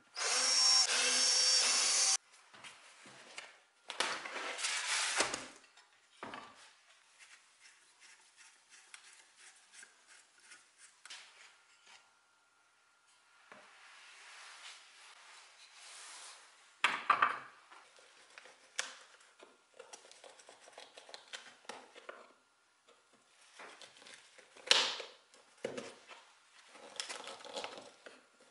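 Makita cordless drill-driver backing screws out of a steel seat frame, one run of about two seconds at the start and another about four seconds in. Afterwards, quieter scraping and rubbing of wood and metal with a few sharp knocks as old wooden parts are worked loose, the loudest knocks more than halfway through and near the end.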